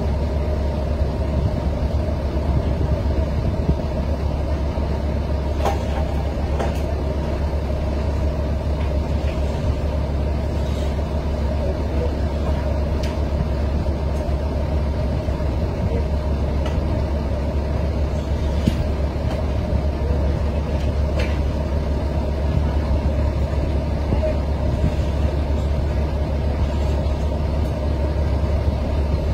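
Steady low diesel rumble of a standing passenger train's engine running at idle, with a few faint clicks.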